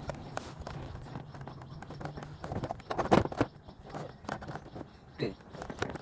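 Scattered knocks and clicks of plastic centre-console trim being handled and pressed into place around a Proton Wira's manual gear lever, the loudest knock about three seconds in, over a low steady hum.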